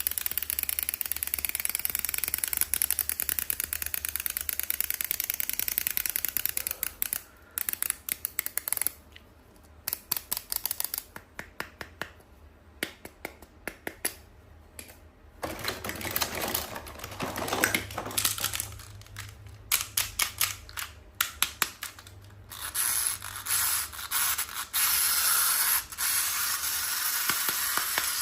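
Close-up handling of toy packaging: rapid crinkling and clicking alternating with hissy rustling, stopping and starting.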